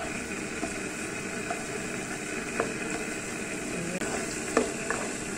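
Chopped garlic sizzling steadily in melted butter, fried gently toward golden brown, with a few light knocks of a wooden spatula stirring it in the pan.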